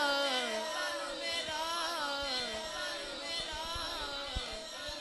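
A solo male voice singing devotional verse through a microphone and PA, drawing out long ornamented, wavering notes that slide downward. It grows quieter toward the end.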